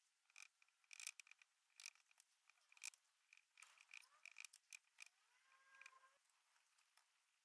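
Faint, irregular ticking and scratching of a flat paintbrush's bristles dabbing and stroking paint onto a small metal drill end plate.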